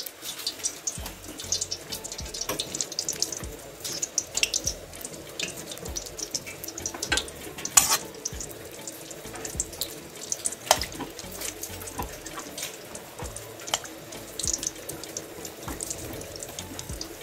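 Strips of chin chin dough deep-frying in hot oil in a metal wok: a steady sizzle with scattered crackles and pops, and an occasional clink of a slotted spoon against the wok. Rain falls underneath.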